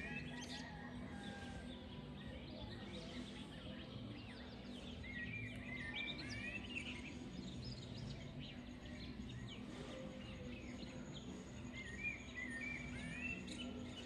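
Songbirds singing: a short run of quick chirping notes that comes back about every six seconds, over a faint steady low hum and background rumble.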